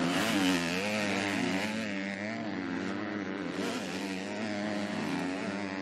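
Two KTM 250cc four-stroke motocross bikes racing together, engines revving hard. Their pitch rises and falls continuously as the throttle is worked.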